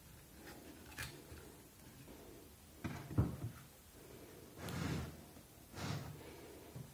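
Handling noises of a Bosch GCL 2-15G green laser level on a wooden table: scattered light clicks and knocks, the loudest a sharp knock about three seconds in, with two short rustles near the end.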